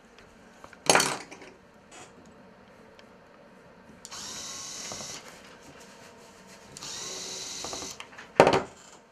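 Small electric screwdriver driving into a fishing reel, running in two whirring bursts of about a second each. A sharp knock comes about a second in, and a louder one near the end.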